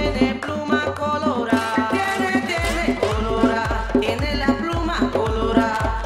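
Live psychedelic electronic dance music with Latin-American roots, percussion over a steady kick beat at about two beats a second. The kick drops out just after the start and comes back about two and a half seconds in.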